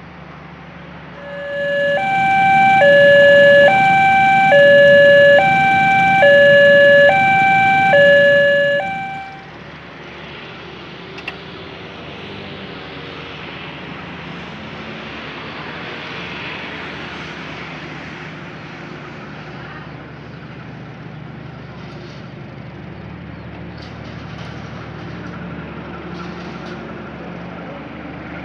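A loud two-tone hi-lo siren, alternating between a low and a high note about five times over some eight seconds, then cutting off. It plays over the steady rumble of passenger coaches rolling past on the rails, which runs on alone for the rest of the time.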